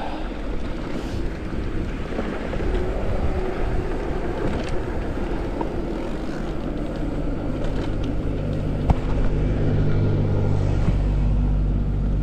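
Mountain bike tyres rolling on dirt and then on cracked asphalt, with wind on the helmet microphone. About halfway through, the steady low hum of a large idling vehicle comes in and grows louder. One sharp knock is heard near the end.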